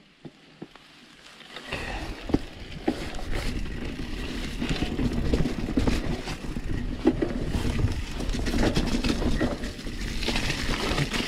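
Santa Cruz Hightower 29er mountain bike riding over rough off-trail ground. The tyres rumble and the bike rattles with frequent irregular knocks. This starts about two seconds in, after a short quiet stretch with a few clicks.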